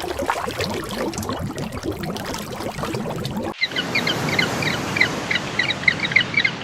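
Two spliced animal-sound clips: first a dense, noisy clatter of rapid irregular sounds, then after an abrupt cut about three and a half seconds in, a bird's short high chirps repeated several times a second over background noise.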